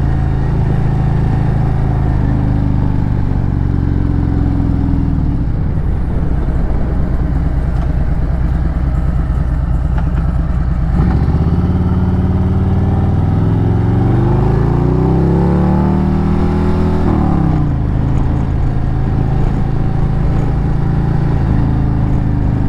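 Harley-Davidson Road Glide's V-twin engine running under way. Its pitch climbs steadily as the bike accelerates from about halfway through, then drops back sharply about three-quarters of the way in and settles.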